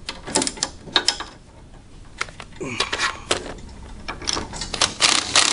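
Scattered metallic clicks and clinks of hand tools and steering parts being handled, with a denser rattling noise starting near the end.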